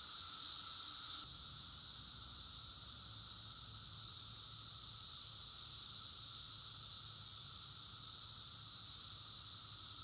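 Steady chorus of periodical cicadas, a continuous high-pitched hiss; a lower-pitched part of the drone drops out about a second in.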